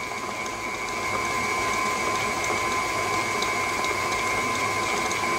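KitchenAid Artisan stand mixer running steadily with a constant motor whine, its beater creaming softened butter and sugar in the glass bowl.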